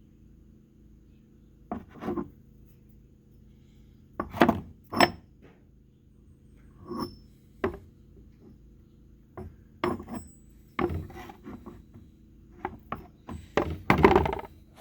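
Steel 3/4-inch-drive impact sockets being handled and set down on a hard surface: irregular knocks and clinks, a few ringing briefly, with a longer scrape near the end.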